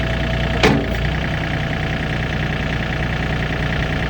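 A vehicle engine idling steadily, with one sharp knock a little under a second in.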